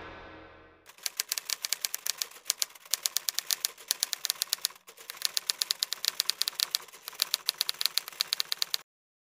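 Typewriter sound effect: a rapid run of key strikes, several a second, with a short break about four seconds in, stopping abruptly near the end. It follows the last of a music track fading out in the first second.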